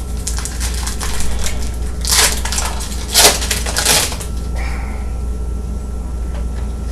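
Sports card pack wrappers crinkling as packs are torn open and handled, with two louder bursts of crinkling at about two and three seconds in, over a steady low electrical hum.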